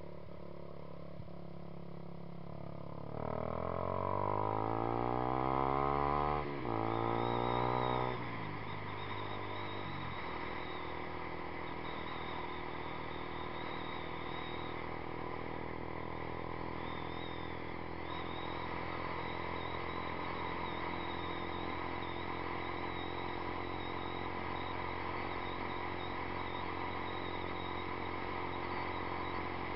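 2012 Yamaha YZF-R15's single-cylinder four-stroke engine through a Two Brothers Racing exhaust, under way. About three seconds in it accelerates, revs climbing for about five seconds with a brief dip midway, then it settles to cruising at steady revs.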